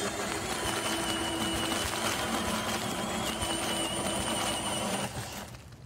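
DeWalt cordless right-angle drill boring through wood, its motor whining steadily under load. The sound fades out near the end.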